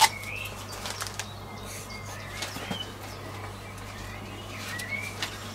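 Small birds chirping in short rising and falling calls, with scattered light clicks and one sharp click right at the start, over a faint steady low hum.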